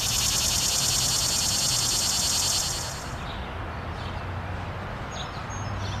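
Cicada calling: a loud, high, rapidly pulsing buzz that fades away about three seconds in, leaving a faint steady background hiss.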